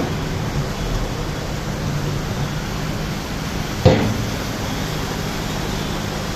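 Muddy floodwater rushing across a city road, a steady rushing noise, with a short thump about four seconds in.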